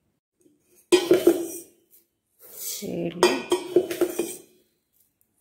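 Steel tumbler knocking and clinking against a stainless steel pot as raw rice is tipped into it with a hiss, the pot ringing after the knocks; two bursts of this, about a second in and again from about two and a half seconds.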